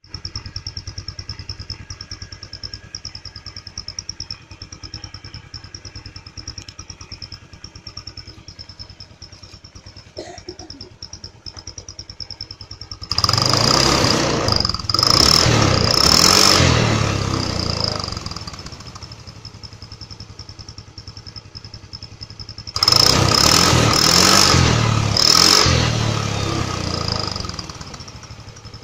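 Honda Vario 110 scooter's single-cylinder engine idling with a turbo whistle fitted at the exhaust tip, giving a steady high whistle over the engine's putter. The throttle is opened twice, about halfway through and again later, and each time the engine note swells and the whistle grows louder and wavers in pitch before settling back to idle.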